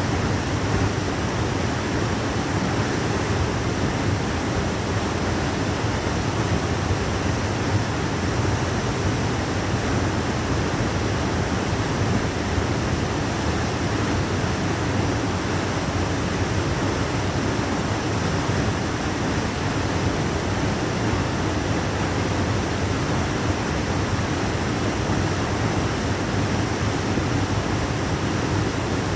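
Waterfall: a steady, unbroken roar of falling water.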